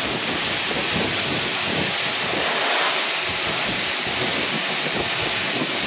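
Pressurized gas hissing steadily out of a 1/8-inch pinhole leak in a pipe: the leak is still live, not yet sealed by the putty and tape.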